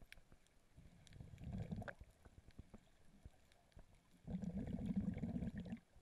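Underwater audio from a snorkeler's camera: two bursts of low gurgling rumble, one about a second in and a louder one from about four seconds in that cuts off just before the end, with faint scattered clicks between them.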